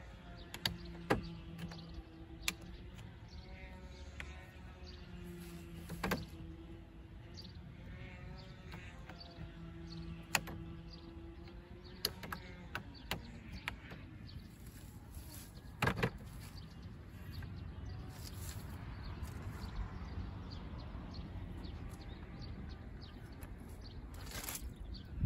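Scattered clicks and knocks from a low folding camp chair's metal frame being handled, lifted out of a van's cargo area and opened, with a cluster of knocks near the end. Soft background music plays underneath.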